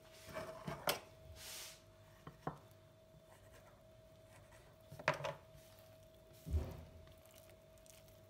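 Hands folding and pressing thin oiled mhadjeb dough on a wooden table: a few soft taps and knocks, a short rubbing hiss about a second and a half in, and a duller thump later on. A faint steady hum runs underneath.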